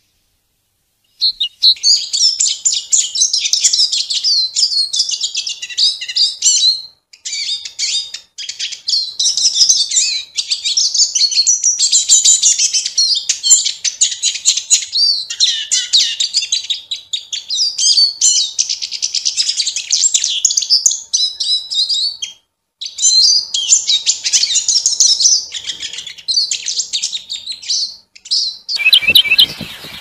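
A small songbird singing long runs of rapid, high twittering notes, broken by a few short pauses. Near the end a steady hiss comes in.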